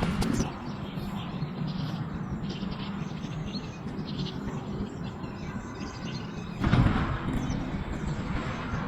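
Outdoor background noise with faint, scattered bird chirps, and a brief louder rush of noise about seven seconds in.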